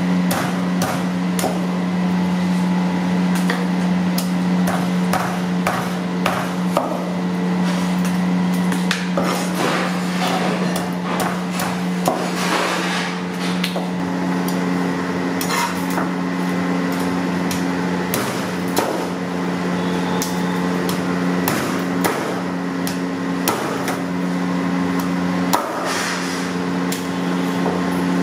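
Steel cleaver chopping blocks of frozen fish on a wooden chopping board: irregular sharp knocks of the blade striking through the ice-hard fish into the wood, over a steady low hum.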